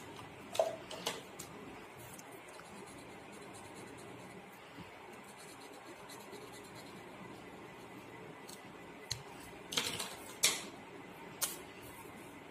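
Felt-tip marker scratching faintly on paper during colouring, with a few sharp clicks of markers and pen caps being handled, a cluster of them about ten seconds in.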